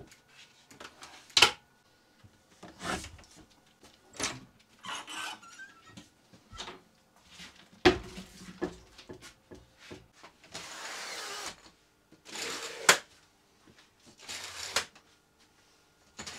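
Someone moving about and handling things in a small wooden room. There are two sharp knocks, one about a second and a half in and one near the middle, with scattered clicks and several short bursts of rustling.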